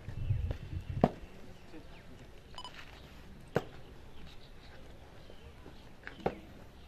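Drill boots stamping on a packed-earth parade ground: three sharp single stamps a couple of seconds apart, over a faint outdoor background.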